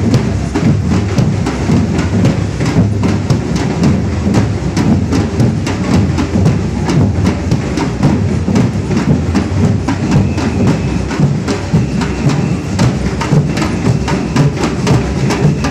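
Samba batucada drum band playing on the march: large surdo bass drums struck with mallets, with snare drums rattling over them in a steady rhythm.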